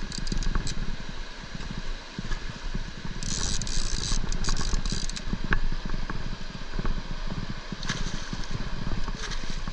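Hooked flathead catfish thrashing and splashing at the surface beside a landing net, in hissing bursts about three seconds in and again near the end, over a steady low rumble.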